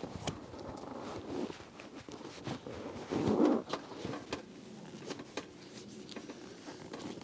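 Leather headrest cover rustling and scraping as it is tugged down over a bare foam headrest, a tight fit. Small clicks are scattered throughout, with a louder rustle about three seconds in.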